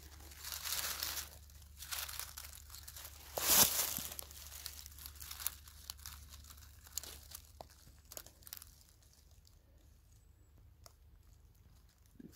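Dry fallen beech leaves rustling and crackling as the leaf litter is disturbed, in several bursts with the loudest about three and a half seconds in, then only faint scattered crackles.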